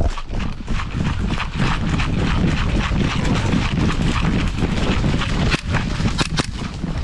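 Close running footsteps crunching quickly and unevenly through dry leaf litter and twigs, with a few sharper snaps about six seconds in.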